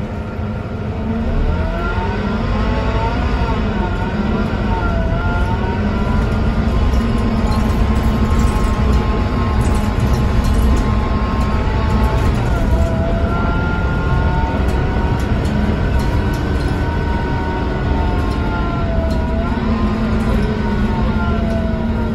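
Scania DC9 five-cylinder diesel and ZF Ecomat automatic gearbox of a Scania K230UB bus, heard from inside while under way: a steady low drone with a whining, slightly odd set of tones that rise and fall as the bus speeds up, with dips at gear changes a few seconds in, about halfway, and near the end.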